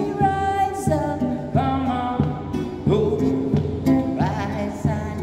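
A man singing in a held, sliding voice while strumming a nylon-string classical guitar in steady chords.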